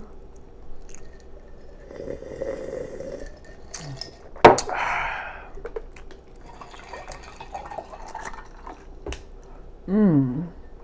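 Close-miked wet chewing and lip smacking, with a sharp smack about halfway through that is the loudest sound. Near the end comes a short sound from the voice that falls in pitch.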